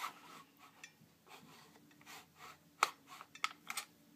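Faint handling noise of a plastic airsoft M16 rifle, with a few light clicks about three seconds in.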